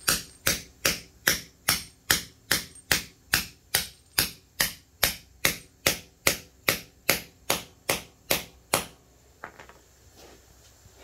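Steady blows of a short-handled sledge on a steel bolt-and-nut setting tool, driving a concrete anchor into its drilled hole so that it expands and sets. There are about two and a half sharp, briefly ringing metal-on-metal strikes a second, and they stop about nine seconds in.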